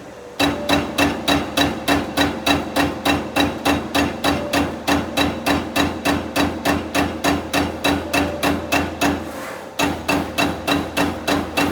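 CNC turret punch press punching sheet metal: rapid, evenly spaced punching strokes at about four to five a second, with a brief pause about nine and a half seconds in before the strokes resume.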